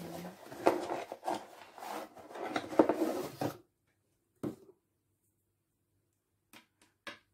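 Packaging and small plastic parts of an LED makeup mirror rustling and rubbing as they are handled and unwrapped. About three and a half seconds in the rustling stops, and a few light clicks follow.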